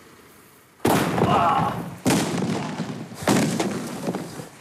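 Class 4 firecracker charges exploding inside pumpkins: three loud bangs about a second apart, each trailing off. The charge is heavier than needed and blows the pumpkins apart.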